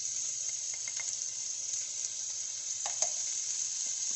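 Minced meat frying in ghee in a nonstick pan: a steady sizzle, with one light knock about three seconds in.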